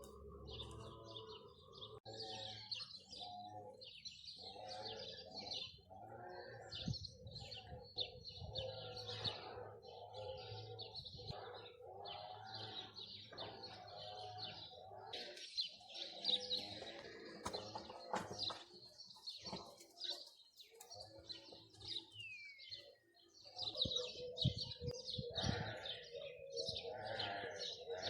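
Birds chirping and calling: a steady chorus of many short high chirps over lower calls, with one clear falling call near the end.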